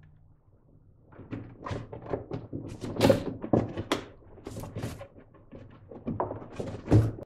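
Plastic inner fender liner of a Honda Accord being pulled back and flexed by hand in the wheel well: a string of irregular thunks and crackles starting about a second in, the loudest in the middle and just before the end.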